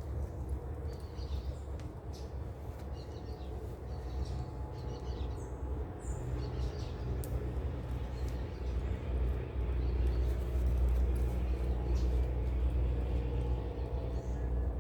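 Low steady rumble of a distant motor that grows somewhat louder about two-thirds of the way in, with faint bird chirps over it.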